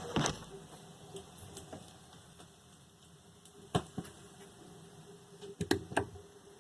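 Old turntable's stylus riding the run-out groove of a vinyl record after the track ends: faint surface hiss with sharp clicks, a pair of them coming round again about every two seconds as the record turns.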